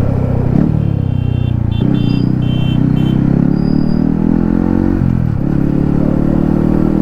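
Yamaha MT-15's single-cylinder engine running through an aftermarket Akrapovic exhaust while riding. The exhaust note dips briefly and picks up again about half a second in and once more about five seconds in.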